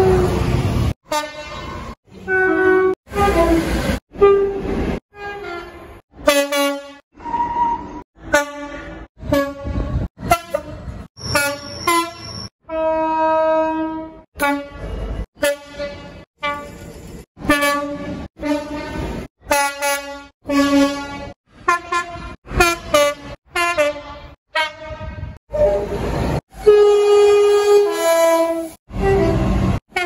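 Rapid run of short diesel locomotive horn blasts, one or two a second, each a chord of steady tones cut off abruptly before the next, with a couple of longer held blasts midway and near the end.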